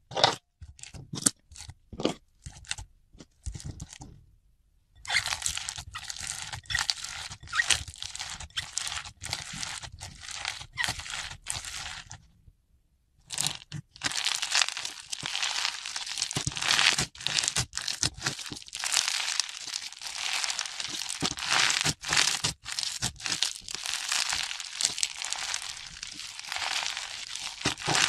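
Foam-bead slime (floam) squeezed and pressed by hand, the tiny foam beads crunching and crackling in dense runs. There is a short pause about five seconds in and another near the middle.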